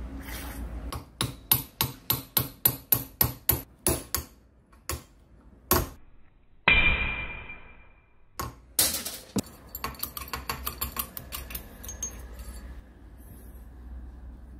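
Hammer blows on steel, knocking a pin out of an old jackhammer body. A run of sharp ringing strikes comes about three a second, then one heavier blow whose metallic ring dies away over about a second, then more scattered strikes and lighter taps.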